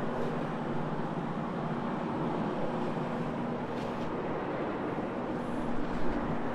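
Oxy-Dry SETT rotary carpet-cleaning machine running steadily: its motor hums at an even pitch while the spinning pad scrubs across the carpet.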